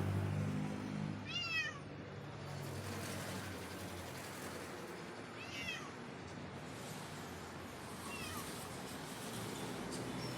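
A cat meowing three times, short high falling calls a few seconds apart, over a steady background hum from a vehicle that is louder in the first second or so.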